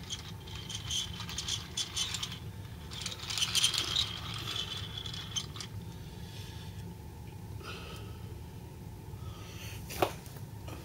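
Small toy truck rolling along a hard vinyl floor under a hand, its plastic wheels and trailer rattling and scraping, loudest about three to five seconds in. It then goes quieter, with a single sharp knock near the end.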